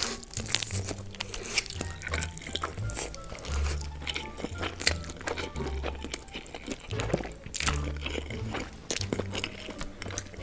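Background music with held low bass notes over close-miked wet slurping and chewing of sauced instant noodles.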